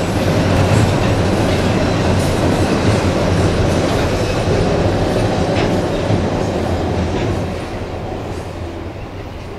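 Freight train of autorack cars rolling across a steel girder bridge, its wheels clacking over the rail joints under a steady rumble. The sound fades near the end as the last cars pass.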